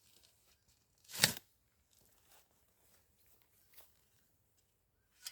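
A single brief, sharp rustle or tear about a second in, with faint scattered rustling otherwise.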